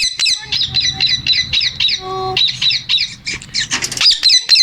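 Male Indian ringneck parakeet calling in rapid series of sharp, high squawks, about seven a second, with a short lower-pitched call about two seconds in before the fast squawks start again.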